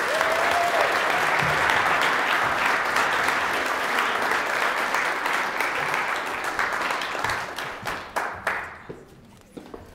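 A room-sized audience applauding, steady at first and dying away over the last couple of seconds.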